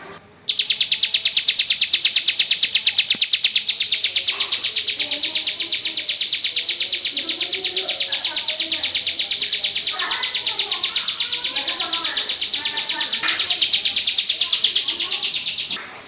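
Bar-winged prinia (ciblek) calling in a fast, unbroken string of sharp, high chirps, about six a second. The calling starts about half a second in and stops suddenly just before the end.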